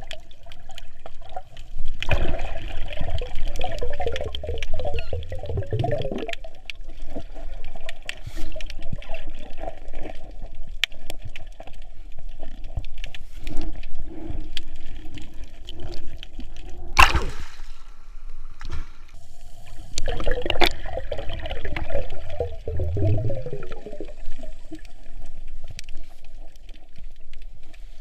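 Water splashing and bubbling around a snorkeler's camera microphone, with two long, louder stretches of bubbling about two seconds in and again about twenty seconds in, and a single sharp knock in between.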